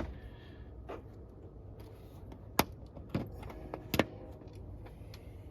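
Plastic push-pin retainer clips being pressed into a truck's plastic trim panel: a few sharp separate clicks and light clinks, the last one doubled.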